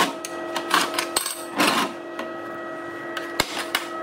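Gloved hands sweeping and handling steel jig pieces on a steel welding table: a few scraping swipes and sharp metallic clicks over a steady hum.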